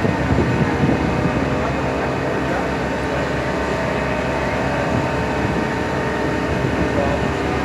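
Large engine running steadily, a constant hum with several fixed low tones over a noisy background, no change in speed.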